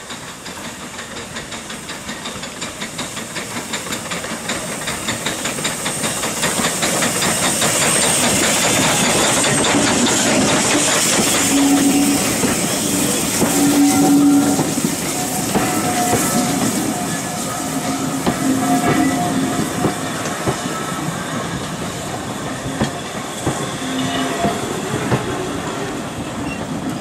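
Hunslet Austerity 0-6-0 saddle-tank steam locomotive and its coaches running into a station, growing louder over the first several seconds as the train approaches. There is a rhythmic clatter of wheels over the rail joints under a hiss of steam, with short squeals from about twelve seconds in as the coaches roll past.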